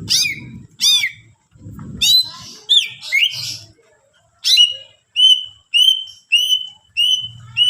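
Green leafbird (cucak ijo) singing: a few loud downward-sweeping whistles and a quick jumble of varied notes, then a run of six short whistled notes repeated about one and a half times a second.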